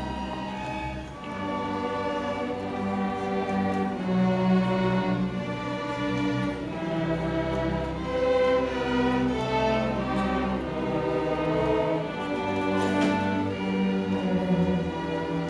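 Junior school string orchestra of violins, cellos and double bass playing, bowing held notes that change every second or two.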